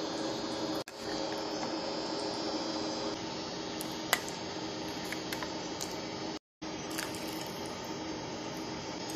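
Steady mechanical hum throughout, with a short sharp clink about four seconds in as a metal ladle meets the serving bowl. The sound cuts out briefly twice.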